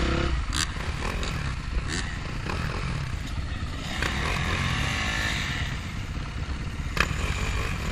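Dirt bike engines running at low revs, with a few sharp knocks about half a second, two seconds and seven seconds in.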